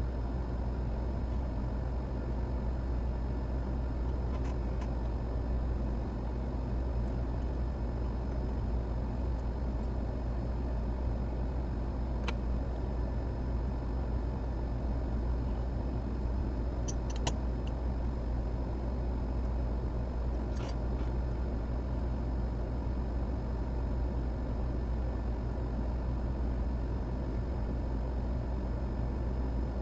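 Steady low hum and rushing noise of running workbench equipment, such as a fan or blower, with a few faint short clicks from tools about a third and two thirds of the way through.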